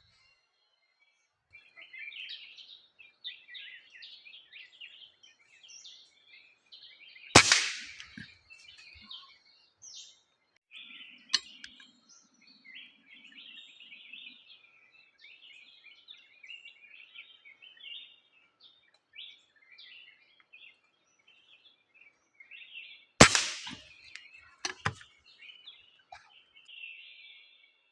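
Small birds chirping and chattering continuously, broken by loud sharp cracks of a PCP air rifle firing, one about 7 seconds in and one about 23 seconds in, with a lighter click near 11 seconds and another crack near 25 seconds.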